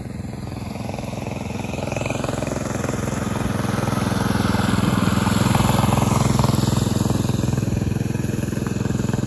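Small mini bike engine running as the bike rides past, growing louder to a peak about six seconds in and then easing off a little.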